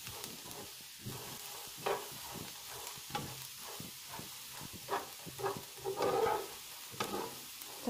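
Spatula stirring and scraping boiled, dehulled soybeans around a non-stick frying pan in irregular strokes, with a sizzle as the moisture cooks off: the beans are being dried on the heat before the tempeh starter goes in.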